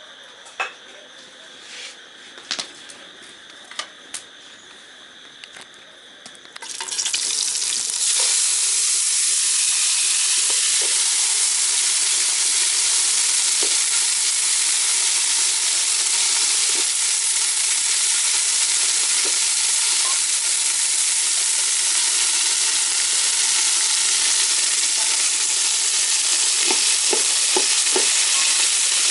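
Faint steady insect chirring with a few clicks, then about seven seconds in a loud, steady sizzle starts and holds: peas, carrots and potato frying in an aluminium pot over a wood fire while a ladle stirs them.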